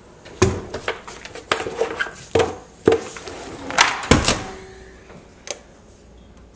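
A run of sharp knocks and clunks, about eight in the first four seconds and one more near the end, from a microwave oven's door and the plate inside being handled.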